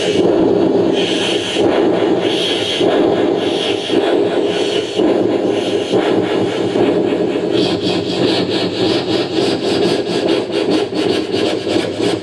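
A man imitating a steam train with his mouth into a microphone: chuffing with regular hissing puffs, quickening in the second half to a fast, even chug as the train picks up speed.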